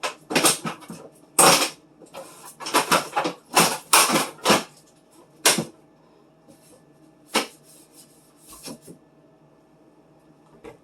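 Refrigerator shelf being worked out of the fridge, knocking and clattering against the fridge interior: a quick run of sharp knocks over the first six seconds, then a few scattered ones.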